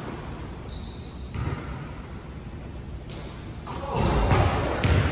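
Basketball bouncing on a hardwood gym floor, with the thuds echoing in a large gym hall. The thuds get louder and come in a cluster from about four seconds in, as a shot comes off the backboard.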